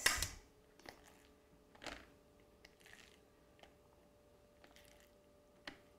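A metal fork lightly clicking against a ceramic plate as raw chicken pieces are flipped over, a few faint clicks about a second apart.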